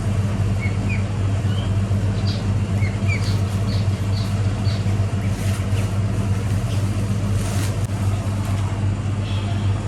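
A steady low machine hum, with short high chirps from small birds scattered through it.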